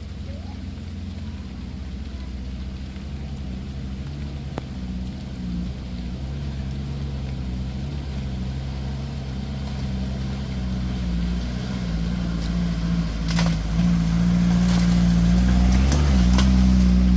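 Off-road 4x4's engine running at fairly steady revs, growing steadily louder, with a few sharp knocks in the last few seconds.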